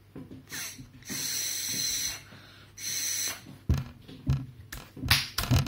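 Air blown through a straw into slime, two long blows, then several short wet pops and bubbling as bubbles form and burst.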